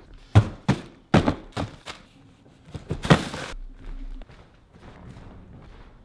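A run of dull thunks, four in quick succession in the first two seconds, then a short hiss about three seconds in.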